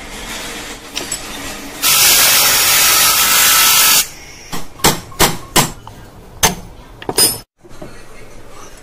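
A loud, steady hiss of gas or air lasting about two seconds and stopping abruptly. It is followed by a string of sharp, separate hammer-like taps on metal parts.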